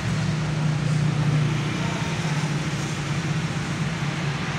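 An engine running steadily at idle: a low, even hum that holds one pitch throughout.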